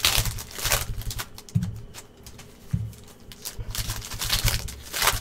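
Packaging of a trading-card box being worked open by hand: plastic wrap crinkling and tearing in a few short swishes over a run of small clicks, taps and dull knocks.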